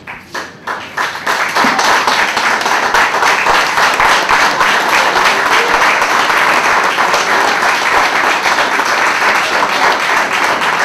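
Audience applauding: a few scattered claps at first, building within about two seconds into full, steady applause.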